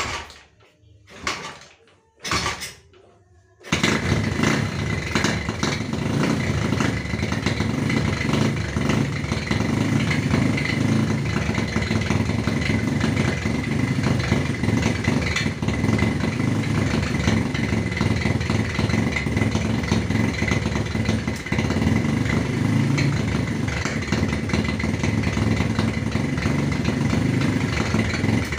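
Honda CB motorcycle with a GL100-based single-cylinder four-stroke engine being kick-started. A few kicks, then it catches about four seconds in and runs steadily. The air screw is missing from its stock GL carburettor, so the idle can't be turned down.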